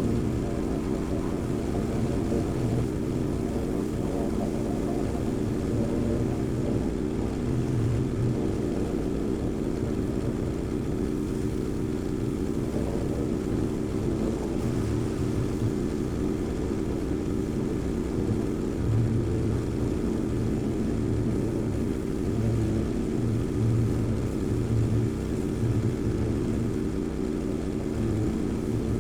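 An engine running steadily, with an uneven low throb.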